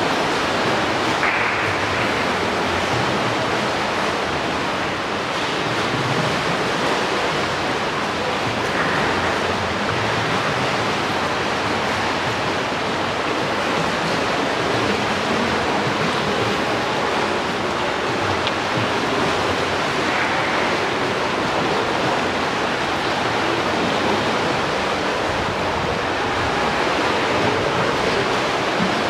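Steady rushing ambience of an indoor swimming pool hall: water washing in the pool and its overflow gutters, echoing in the hall.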